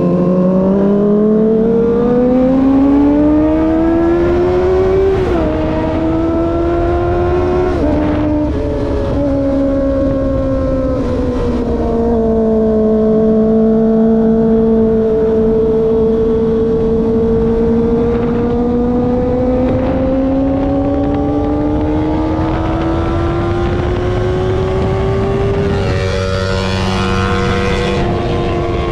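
Kawasaki ZX-25R's 250 cc inline-four engine under way: revs climb with two quick upshifts in the first several seconds, then ease off, hold a steady cruise, and climb again near the end. Wind noise runs underneath.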